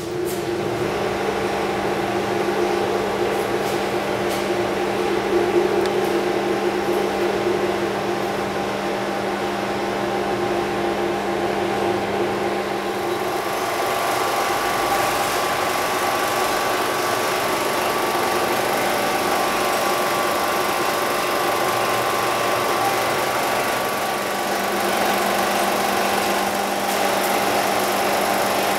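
A steady, machine-like hum with several steady tones, which changes character about thirteen seconds in.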